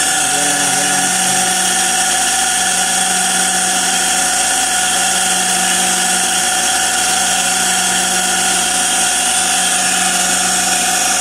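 Industrial sewing machine clutch motor, flood-soaked and freshly oiled, running with a steady hum and a high whine. The mechanic takes noise like this to mean the motor may need a new bearing.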